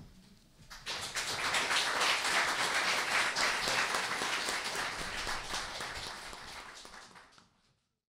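Audience applauding. It starts about a second in, is fullest soon after, then dies away and cuts to silence near the end.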